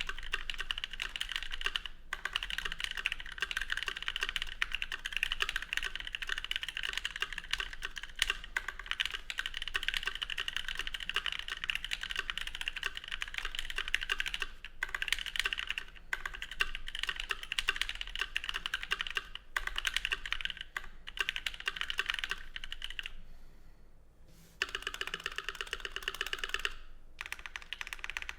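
Continuous typing on a Think6.5 custom mechanical keyboard with a polycarbonate top and aluminium bottom, Novelkeys Cream linear switches lubed with Krytox 205g0 and GMK keycaps: a dense stream of key clacks. It breaks off for about a second and a half near the end, then resumes.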